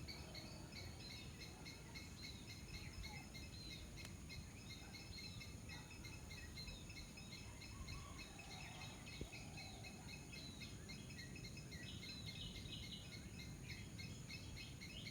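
Faint outdoor ambience of many small birds chirping, over a steady high insect drone and a low background rumble.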